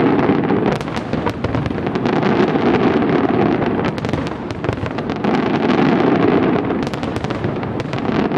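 Fireworks display: a dense, continuous rumble of many overlapping bangs and crackles with sharp pops throughout, swelling and easing every couple of seconds.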